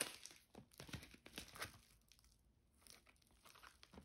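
Faint crinkling and rustling of a parcel's packaging being handled and opened, in scattered short bits that fade to near quiet midway and pick up again near the end.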